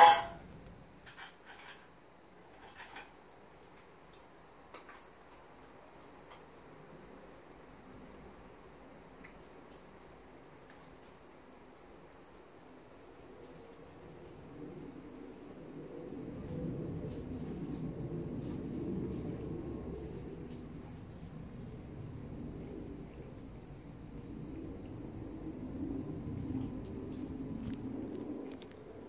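Crickets chirring in one steady, high-pitched drone at night. About halfway through, a low rumble swells in and stays, rising twice.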